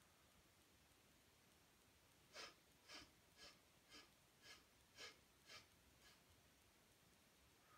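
A person breathing out sharply through the nose, eight quick puffs about two a second, the last one faint: rapid pumping pranayama breathing such as breath of fire.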